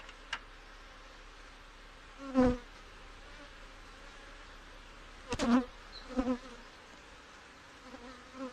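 Steady hum of a honey bee colony at an open hive. Several loud, brief buzzes of single bees flying close past, the loudest about two and a half and five and a half seconds in.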